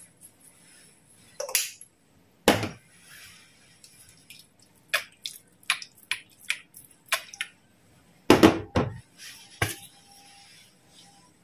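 Seasoning shakers and jars clicking and knocking while spices are shaken into a pot of minced meat: a run of sharp taps, about two or three a second, a few louder knocks, and a soft hiss of shaken powder between them.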